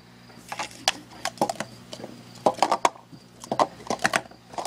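Plastic sport-stacking cups (Speed Stacks) being stacked up and down in a 3-6-3 sequence: a quick, irregular run of light clicks and clatters as the cups are set down and slid together on the mat.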